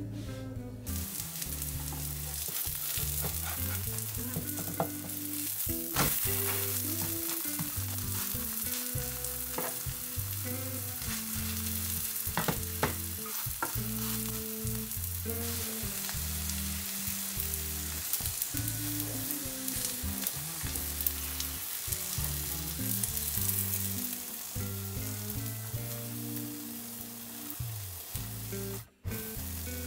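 Food sizzling in hot cooking oil in a frying pan, a steady hiss starting about a second in, with a few sharp clicks of a utensil against the pan. It breaks off briefly near the end.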